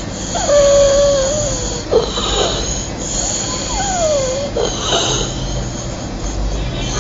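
A child's stridor from an airway narrowed below the vocal cords by laryngeal polyps and granulation tissue. Twice there is a long, high-pitched tone on the breath: the first held level, the second falling in pitch. Each tone is followed by a short harsh rush of air.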